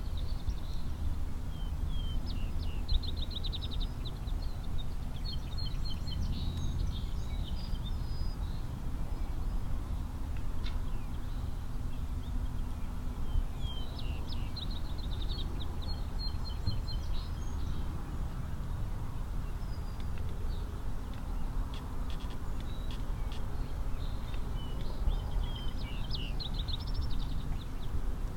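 A songbird singing in bouts of quick, high, trilled phrases, roughly every ten seconds, over a steady low rumble.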